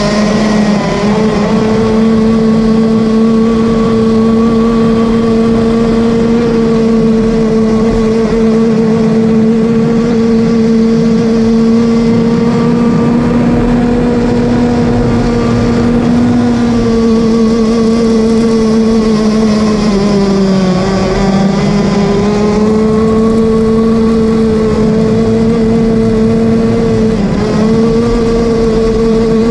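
Zenoah two-stroke gas engine of a Bonzi Sports 47 Skater RC boat running hard, heard from on the boat's deck as a loud, steady high drone. About two-thirds through, the revs sag and climb back, and they dip briefly again near the end.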